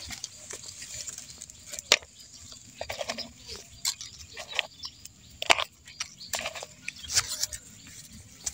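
Hands handling twigs, dry leaf litter and a plastic basin: irregular rustles and sharp clicks, the loudest about two seconds in.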